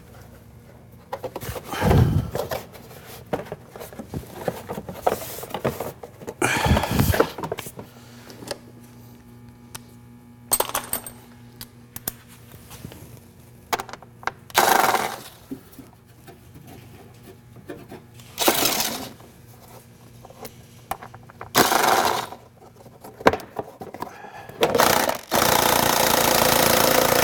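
Plastic inner fender liner being worked out of a car's wheel well: scattered scrapes, knocks and rattles of the plastic and its clips, several separate bursts with pauses between. Near the end a hand-held power tool runs steadily for about two seconds.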